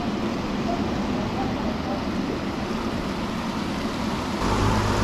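Steady rush of water pouring out of a concrete outflow into the river, with a low rumble joining about four seconds in.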